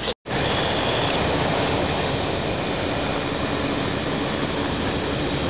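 Steady roar of the Boeing 787 Dreamliner's twin jet engines as the airliner rolls out along the runway just after touchdown, broken by a split-second dropout right at the start.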